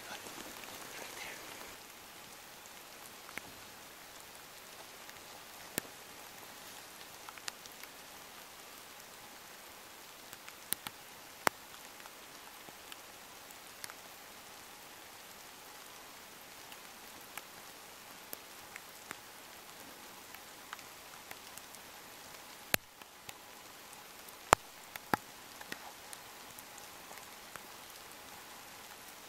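Light rain falling: a steady soft hiss with scattered sharp drips landing close by, the two loudest about three-quarters of the way through.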